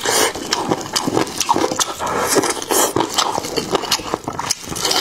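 Close-miked wet chewing and lip-smacking on a mouthful of chicken leg and rice noodles, full of quick, irregular smacks and clicks.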